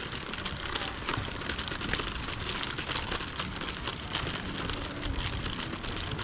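Steady rushing, crackling noise on a walking action camera's microphone, dotted with frequent small clicks: outdoor handling and wind noise with footsteps on stone paving.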